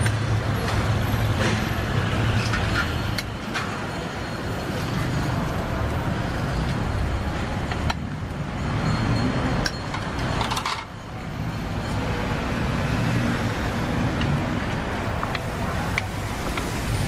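Street-food stall noise: a steady low rumble of road traffic, with occasional sharp clinks of metal spatulas and a ladle against the flat steel pad thai griddle pan.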